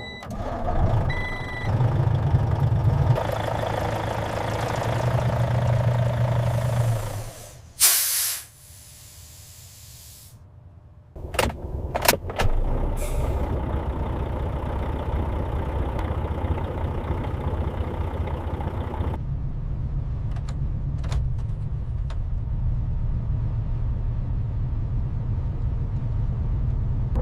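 Semi-truck running, with one short, loud hiss of its air brakes about eight seconds in. Three seconds or so of quieter sound follow, then from about eleven seconds the truck is running steadily again, with a couple of clicks as it picks up.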